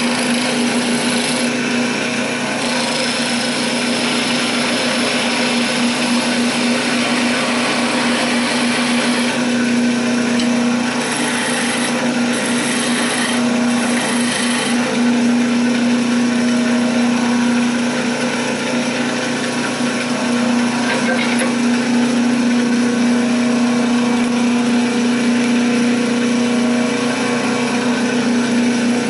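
Wood lathe running with a steady hum while a chisel cuts a wooden spindle, a dense cutting hiss that swells and eases as the tool moves along the work.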